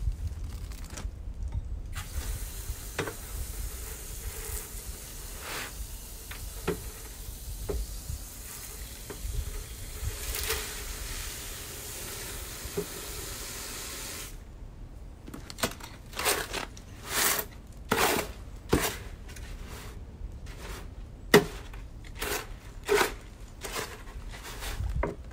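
Water from a garden hose running into a wheelbarrow of dry concrete mix with a steady hiss, stopping about fourteen seconds in. Then a hoe scraping and chopping through the wet concrete in the wheelbarrow, a series of strokes about one a second.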